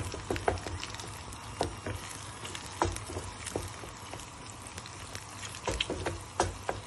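Eggs sizzling in a small frying pan as they scramble, with a wooden spatula scraping and knocking against the pan at irregular moments as it breaks them up.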